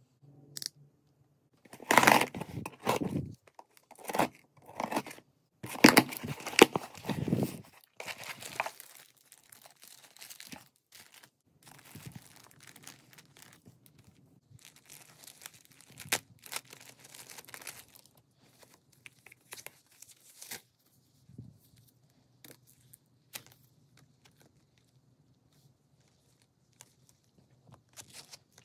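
A taped cardboard shipping box being torn open: several loud rips of packing tape and cardboard in the first nine seconds. These give way to softer crinkling as a clear plastic sleeve is handled and opened, with scattered light rustles and clicks near the end.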